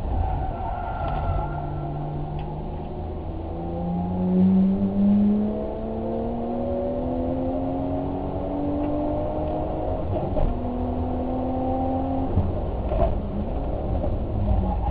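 Car engine pulling under acceleration, its pitch climbing steadily for several seconds, then dropping about ten seconds in and holding steady, over a constant low road and wind rumble.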